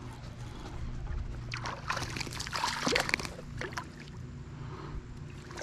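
A small hooked smallmouth bass splashing and thrashing at the surface as it is reeled in and lifted out of the water. The splashing lasts about two seconds, from a couple of seconds in, over a steady low hum.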